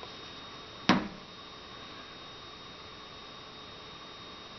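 A single sharp knock about a second in, with a short ring after it, over a faint steady electrical hum.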